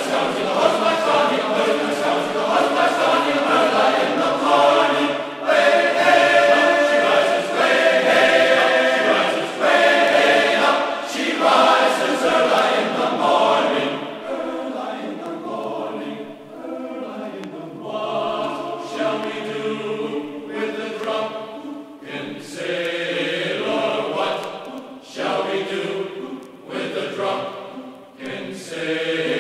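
Background music: a choir singing slow, chant-like vocal music.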